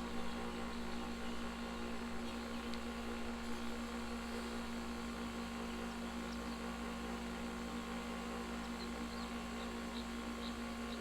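Harbor Freight bench grinder's electric motor running steadily, a constant even hum.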